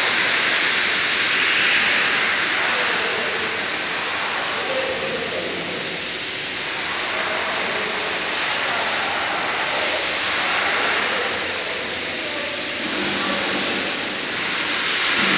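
Mitsubishi 6G72 3.0-litre V6 running on an engine stand, heard close up as a steady hissing mechanical noise, with a slight rise in engine tone near the end.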